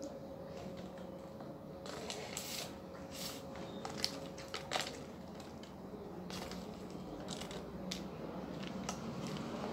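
Close-up eating sounds: a person chewing a crunchy snack of beaten rice (chura), with short, sharp crackly clicks, densest between about two and five seconds in and scattered on to the end.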